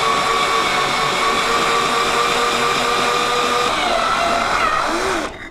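Cordless drill running a water-cooled diamond drill bit through a ceramic plant pot: a steady whine over a gritty grinding noise. It stops shortly before the end, once the bit is through the pot.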